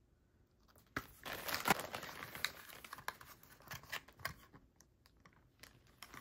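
Cosmetic product packaging handled: irregular rustling and crinkling of cardboard and plastic with small clicks, starting about a second in.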